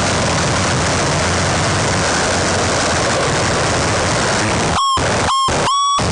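Harsh noise music: a loud, dense wall of rumbling electronic noise. Near the end it is cut three times by short bursts of a steady high electronic tone, the rumble dropping out during each.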